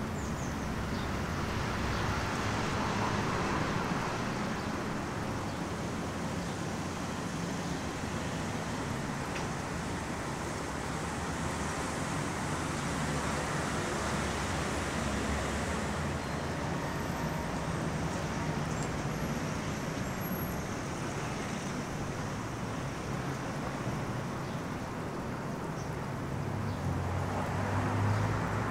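Steady city road traffic noise, cars passing along a street, swelling as vehicles go by about three seconds in and again near the end.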